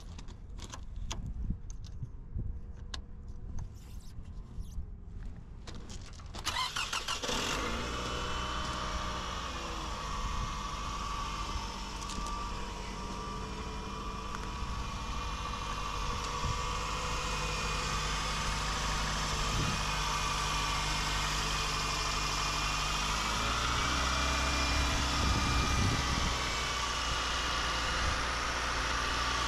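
A 2008 Toyota Camry CE's 2.4-litre four-cylinder engine is started about six seconds in and settles into a steady idle, with a brief wobble in pitch about two thirds through. Before it, there are only light clicks and taps from hands working in the engine bay.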